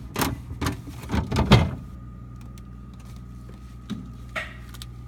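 A quick run of irregular knocks and clatters in the first second and a half, the last the loudest, then a few faint ticks. The knocks are either a fridge drawer being handled or a knife on a cutting board.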